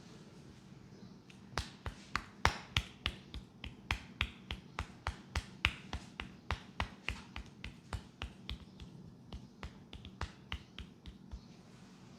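Barber's hands striking rhythmically on the head in an Indian head massage: a fast, even series of sharp claps, about four a second, starting about a second and a half in and stopping near the end.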